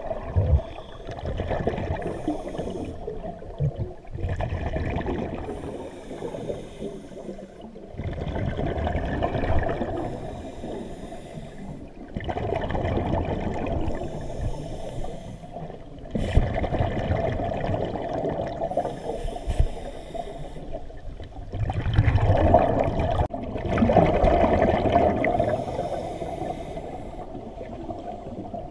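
Scuba diver breathing through a regulator underwater: bubbling exhalations and hissing intakes come and go in cycles of about four seconds, heard through the camera's underwater housing.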